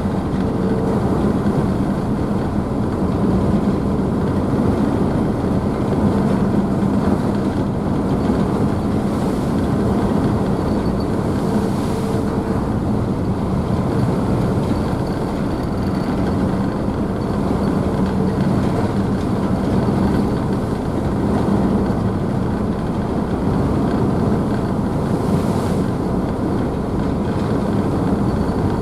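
A ferry's engines running steadily with a constant low hum, mixed with the rushing splash of the wake churned up behind the ship.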